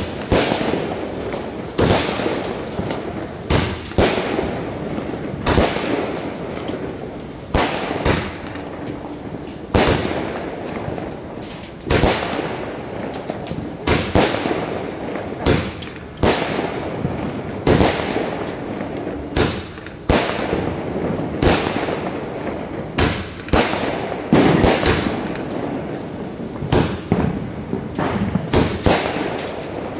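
Indian National Fireworks 120-shot aerial cake firing in a fast series of sharp bangs, roughly one a second and sometimes two close together, with a noisy crackle between shots from the bursting stars.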